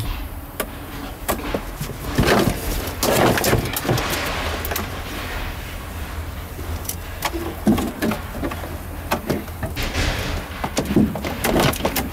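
Irregular clicks, knocks and rustles of plastic interior trim and wiring being handled and pulled loose around a car's centre console, over a low steady rumble.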